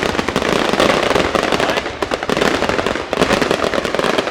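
Fireworks display: a dense, continuous crackle of many rapid small bangs and pops.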